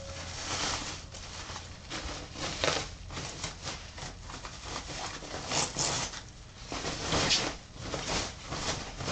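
Plastic wrapping rustling and crinkling in irregular swishes as it is pulled off a new electric guitar, with a few louder crackles along the way.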